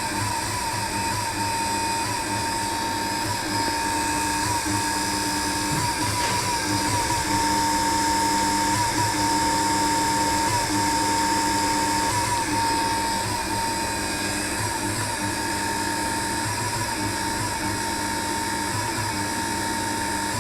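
Electric stirrer motor running steadily under the load of a thick 1% xanthan gum solution, with a steady whine and dull catches like a burp every second or two. This dull hiccuping is the abnormal noise the owner is asking about; the machine is not overheating and has not blown its fuse.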